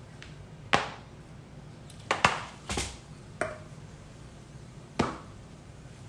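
Cookware being handled in a kitchen: about half a dozen sharp knocks and clacks, several bunched together a couple of seconds in and a last one about five seconds in, each with a short ring.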